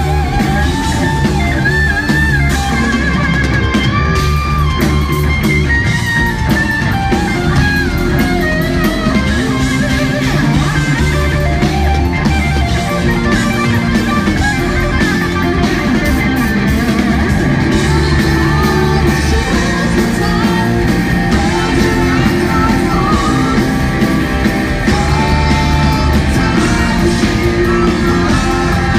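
Live rock band playing loud: a Telecaster-style electric guitar plays a lead line with bends and slides over bass guitar and a drum kit.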